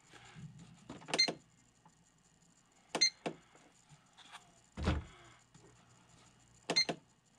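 Buttons pressed on a digital scale, three clicks each with a short electronic beep, and one dull thump of something set down on it near the middle.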